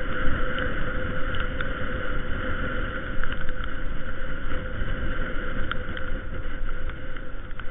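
Steady wind and road noise on a camera carried on a moving bicycle, with a constant hum and scattered sharp clicks.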